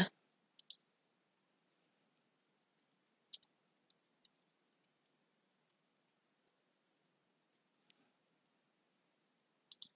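Faint, scattered clicks of a computer mouse and keyboard, some in quick pairs, as the pen icon is clicked and a name is typed into a web form.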